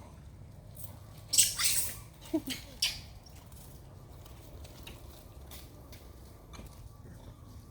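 Monkeys feeding, making short, high-pitched noisy sounds in two quick clusters within the first three seconds, over a low steady background.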